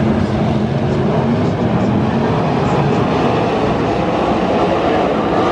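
A pack of winged sprint cars racing around a dirt oval, their V8 engines running together in a loud, steady, rough drone.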